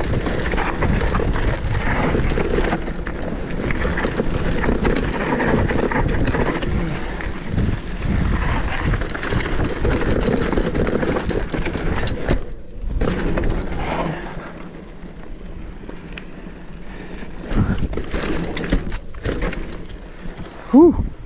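Mountain bike riding fast down a dirt trail: tyres running over dirt with constant knocks and rattles from the bike, and wind on the microphone. About two-thirds through it turns quieter as the bike slows on smoother ground, with a short squeal near the end.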